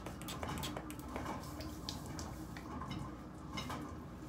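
Ceiling fan running with a faint steady low hum, with scattered small clicks and taps of handling.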